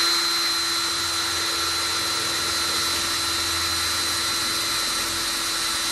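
Power drill running at a steady speed with a steady whine, its tapered bit boring a hole in the side of a steel food can.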